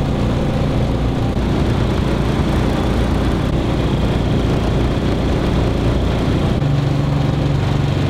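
Small boat's mud motor running steadily, heard from on board. Its note shifts about two-thirds of the way through and settles into a steadier, lower hum.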